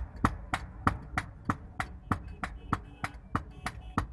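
Hand hammer striking a steel boti blade on an anvil in a steady rhythm, about three blows a second, with some blows ringing briefly.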